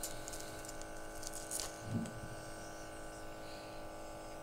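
Faint, steady electric buzz of the TRAK-IT IIIa gas detector's small sample pump running during calibration. A few light clicks and rustles come from the calibration adapter and tubing being fitted by hand.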